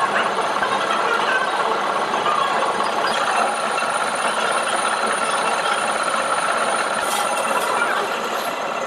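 Steady running noise of machine-shop machinery, with a faint steady whine and a couple of short metallic clicks about seven seconds in.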